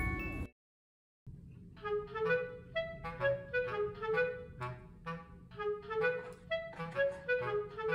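Background music: a woodwind tune of short, separate notes over a steady accompaniment, starting after a brief silence about a second in.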